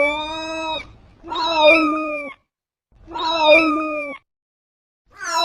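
A cat meowing: a series of long, drawn-out, level-pitched meows with short pauses between, the last one starting near the end and falling in pitch.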